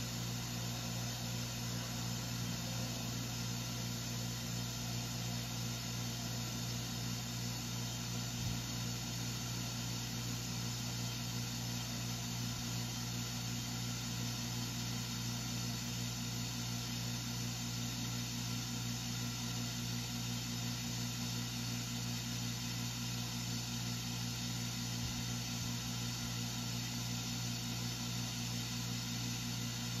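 Water well system running while the submersible pump fills the pressure tank: a steady low hum with an even hiss of water pushing through the pipes as the pressure builds toward cut-off. One light knock about eight seconds in.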